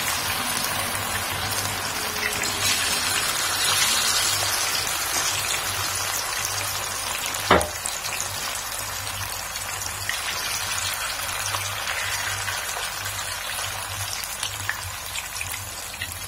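Marinated, flour-coated sardines frying in hot oil in a pan: a steady, crackling sizzle. A single sharp knock comes about seven and a half seconds in.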